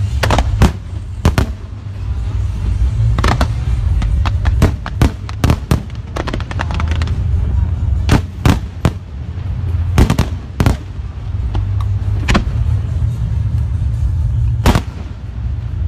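Fireworks display: shells bursting in a rapid, irregular series of sharp bangs, some close together in twos and threes, over a continuous low rumble.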